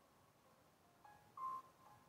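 Faint short tones at a few different pitches, the loudest and longest about one and a half seconds in, over quiet outdoor background.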